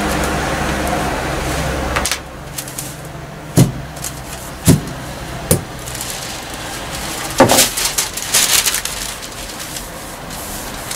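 Heavy metal pattern weights knocked down one at a time on a cutting table, four sharp knocks with the loudest about seven seconds in, and paper pattern sheets rustling as they are smoothed over fabric. A steady machine hum runs underneath at first and cuts off about two seconds in.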